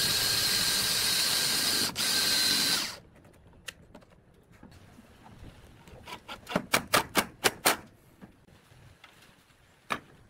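Makita cordless drill driving a screw through a steel corner bracket into plywood, its motor running steadily for about three seconds with a brief break near two seconds. After a pause, a Makita cordless impact driver drives a screw home in a quick run of short bursts, and a single click comes near the end.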